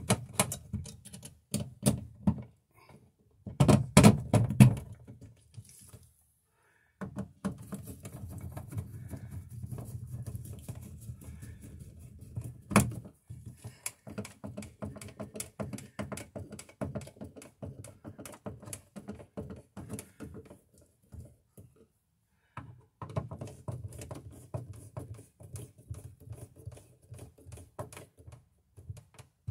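Hand screwdriver turning the mounting screws of a GFI receptacle into a plastic RV wall box: runs of small clicks, ticks and scraping of the screwdriver on the screw and metal mounting strap. Louder knocks and rattles in the first five seconds as the receptacle is pressed into the box, and one sharp click about 13 seconds in.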